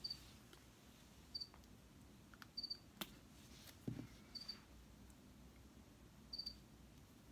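A cricket chirping faintly, with short high chirps every second or two. A sharp snip sounds about three seconds in, and a soft thud follows just before four seconds, as scissors cut plastic and are set down on the carpet.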